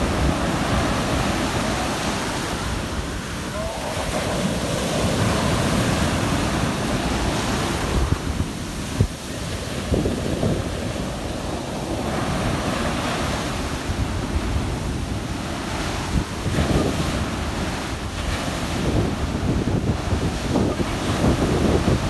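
Heavy surf: big sea waves breaking one after another on a sand beach, with foam rushing up the shore.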